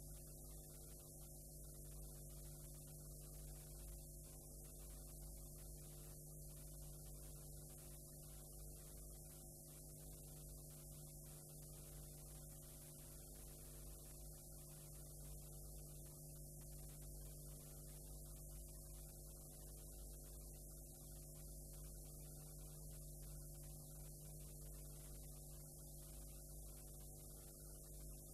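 Near silence: a steady electrical mains hum with its overtones, under a faint hiss from a blank stretch of videotape.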